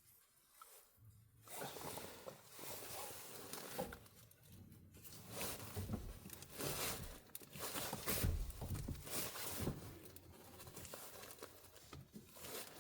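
Irregular rustling, scraping and light knocking of parts being handled and fitted together by hand.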